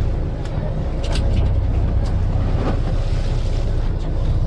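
Steady low rumble of a fishing boat at sea, its engine and the wind buffeting the microphone, with a few short clicks or splashes about a second in.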